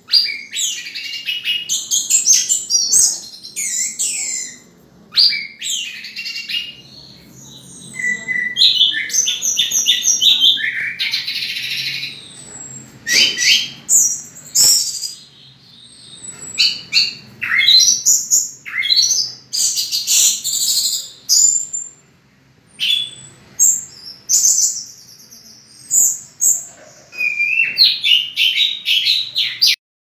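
Orange-headed thrush (anis merah) singing: bursts of quick, varied high whistled phrases and trills, broken by short pauses.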